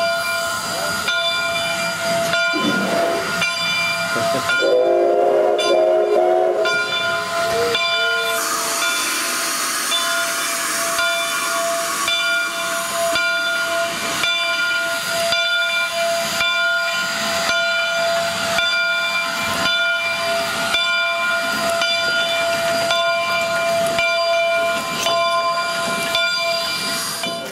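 Steam locomotive 3716, a 2-8-0, giving off a steady whine and hiss with a regular beat. There is a short whistle blast about five seconds in, and a loud rush of steam hiss from about eight to twelve seconds.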